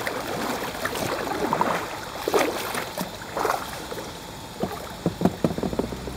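Kayak paddle strokes in river water, with several splashing swishes, then a few short knocks near the end, such as the paddle against the kayak.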